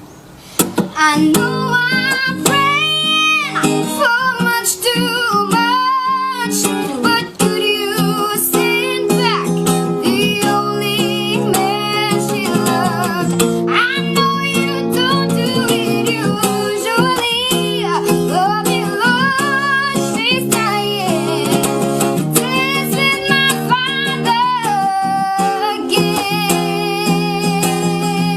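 A child singing a song with wavering, ornamented vibrato over an acoustic guitar accompaniment; the music starts about half a second in.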